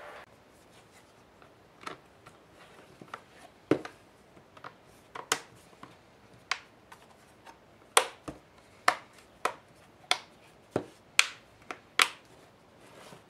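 Plastic back cover of a Google Nexus 7 (2012) tablet being pressed onto its frame, the clips snapping into place one after another as sharp clicks. The clicks are sparse at first and come louder and faster in the second half.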